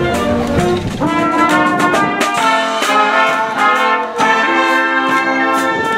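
Military-style wind band of brass and clarinets playing live, a tune in held chords.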